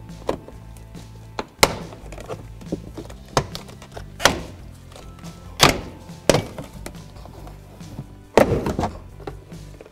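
Plastic truck interior trim panels and their clips being pried and pulled loose: a series of about eight sharp knocks and snaps, the loudest about eight and a half seconds in, over quiet background music.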